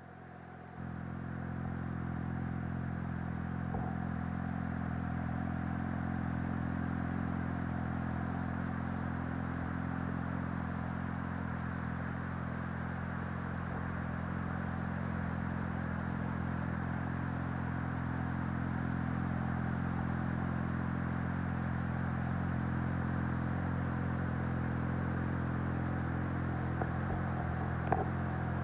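2020 Kawasaki Ninja ZX-6R's inline-four engine idling steadily through an M4 slip-on exhaust, its pitch holding even throughout. A short click sounds near the end.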